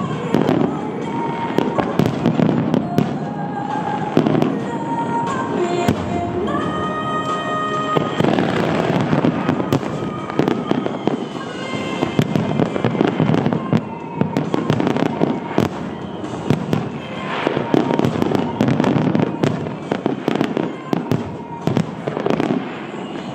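Aerial fireworks bursting and crackling thick and fast, many shells at once, with a song playing at the same time.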